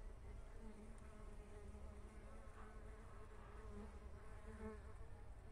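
Faint buzzing of mandaçaia stingless bees (Melipona quadrifasciata) flying at the hive entrance: a steady hum that swells now and then.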